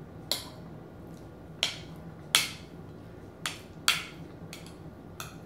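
Metal fork and spoon clinking and scraping against a ceramic dinner plate while food is picked up: about seven short, sharp clinks spread out unevenly, the loudest a little over two seconds in.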